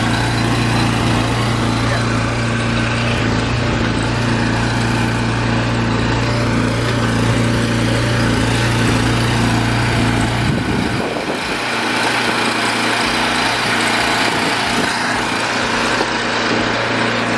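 Small engine running with a steady drone over a broad hiss; about ten seconds in, the low drone drops away and the hiss carries on.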